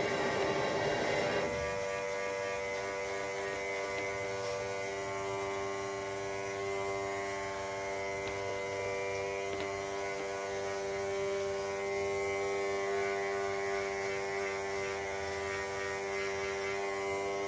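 Corded electric hair clipper buzzing steadily while cutting hair. The buzz is louder and rougher for the first second and a half, then settles to an even hum.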